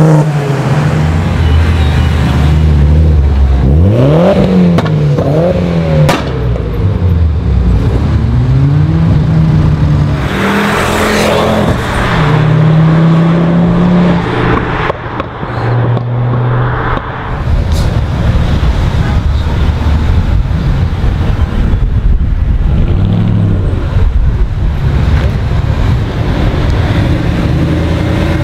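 Several cars driving away one after another, engines revving up through the gears and easing off, with a sharp rising rev about four seconds in.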